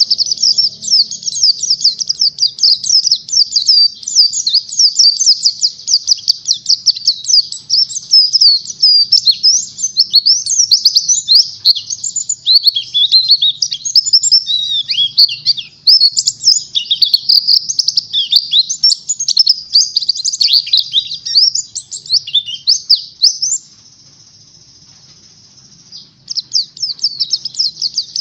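White-eye (pleci) singing a fast, unbroken twittering song of rapid high chirps and trills, the wild-type 'ngalas' song used to train other pleci. Near the end the song stops for about two seconds, leaving only a faint hiss, then starts again.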